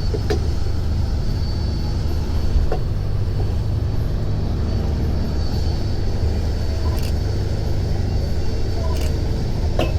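Parasailing boat's engine running steadily with a low rumble, with a thin, steady high whine above it and a few faint clicks.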